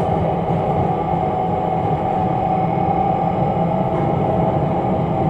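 Interior running noise of the Batara Kresna diesel railbus moving slowly: a steady engine drone and track rumble, with a steady whine on top.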